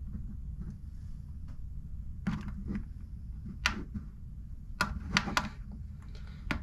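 Hand tapping and pressing on the plastic case and buttons of an Eton Zoneguard weather radio: a handful of sharp, irregular clicks from about two seconds in, over a low steady rumble.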